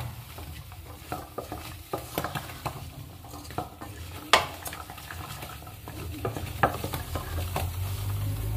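A wooden spoon stirring diced vegetables frying in a stainless steel pot, with a light sizzle under irregular scrapes and clicks of the spoon against the pot. There is one sharper knock about four seconds in.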